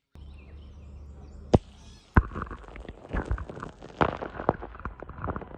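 A low rumble with two sharp, loud cracks about a second and a half and two seconds in, followed by a quick, irregular run of smaller knocks and taps.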